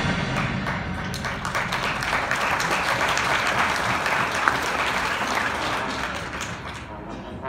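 Audience applauding a marching band's performance in a stadium, with dense clapping that dies away near the end.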